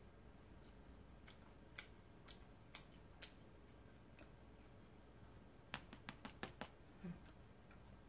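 Near silence with faint eating clicks: scattered ticks, then a quick run of clicks about six seconds in.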